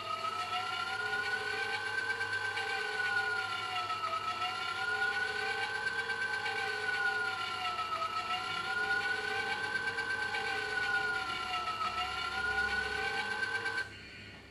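Electronic siren-like tone from a line-following robot's sound animation. It glides slowly up and back down in pitch about every four seconds, then stops abruptly near the end.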